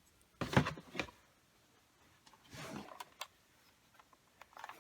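Objects being handled as items are taken out of a box: a few sharp clicks and knocks, a brief rustle, and a run of small clicks near the end.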